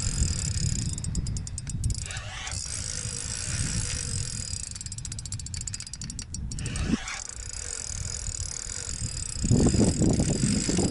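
Spinning reel clicking in two quick runs of fine, evenly spaced clicks while a hooked taimen is being fought on the line, over a steady low rumble. A louder rustling noise comes in near the end.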